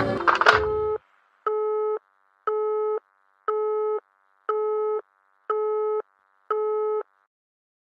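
Phone alarm beeping: a steady tone with overtones, on for about half a second and off for half a second, seven beeps in a row. The beeps stop about a second before the end, as a hand reaches the phone to switch the alarm off.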